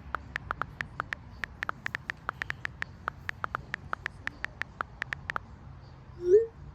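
Rapid, irregular clicking, about four or five clicks a second, that stops about five seconds in. It is followed near the end by one short, loud rising chirp.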